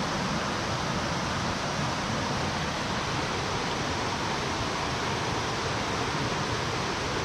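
Steady rush of a mountain stream's flowing water, an even, unbroken noise.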